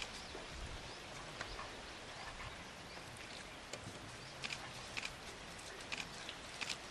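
Faint outdoor ambience: a steady hiss with a few short, sharp high clicks or chirps from about four seconds in.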